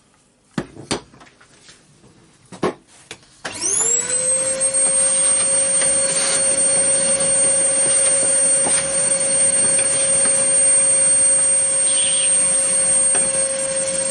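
A few sharp knocks, then an electric motor spins up about three and a half seconds in and runs at a steady speed with a high whine for about ten seconds, beginning to wind down at the very end.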